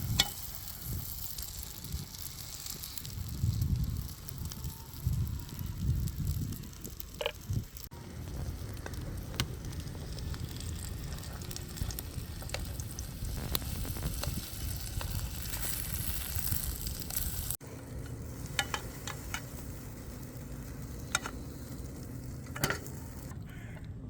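Food sizzling as it cooks over an open fire, a steady frying hiss with scattered sharp clicks and crackles. The sound changes abruptly at two edits, about eight seconds in and about seventeen and a half seconds in.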